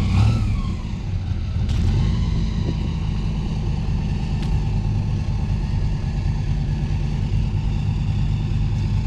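Custom airboat's 383 stroker small-block Chevy V8 and its propeller running on the river, the pitch dropping as the throttle eases in the first second, then rising slightly about two seconds in and holding steady.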